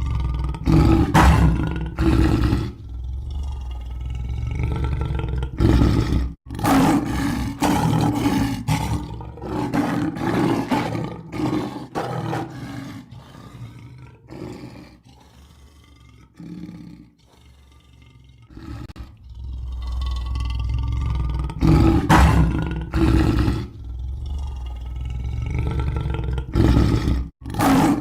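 Lion roaring again and again: long rough pitched roars that swell and fade, loudest near the start and about three quarters of the way through, with quieter growling in between.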